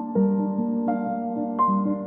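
Soft, slow piano-led background music in a gentle new-age style, with notes struck about every half second to three-quarters of a second.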